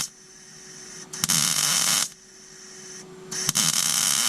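Arc welder laying short stitch welds on 1/8-inch steel patch plates on a car's engine cradle: two bursts of crackling hiss, each under a second or so, starting about a second in and again about three and a half seconds in. A faint steady hum sounds between the bursts.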